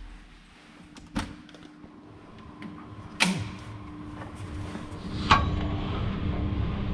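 A wall access door to a service shaft being unlatched and swung open, with three sharp clicks or knocks: about a second in, a louder one about three seconds in, and another about five seconds in. After the last knock a low rustling rumble builds as someone climbs into the shaft, over a faint steady hum.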